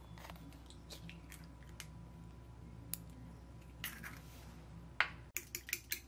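Raw egg going into a ceramic bowl with faint soft handling sounds, then a fork beating it, clinking quickly against the bowl near the end.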